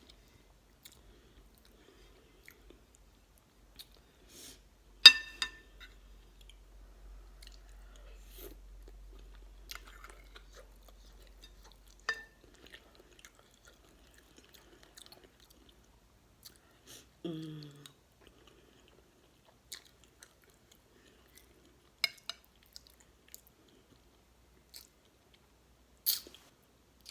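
Close-miked chewing and mouth sounds of a person eating beef stew, with a few sharp clicks and clinks of a utensil, the loudest a ringing clink about five seconds in. A short low hum of the voice comes about two-thirds of the way through.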